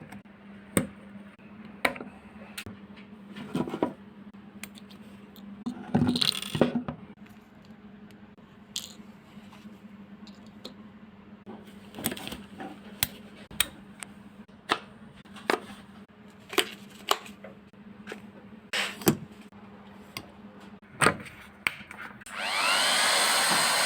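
Scattered clicks and knocks of a heat gun being handled and worked on. Near the end the heat gun is switched on: its fan spins up with a rising whine into a steady rush of blown air.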